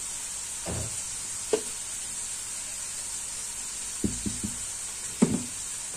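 Thick sponge cake batter being poured out of a tilted stainless steel mixing bowl into a cake pan: a few soft knocks of the metal bowl, three close together near the end, over a steady background hiss.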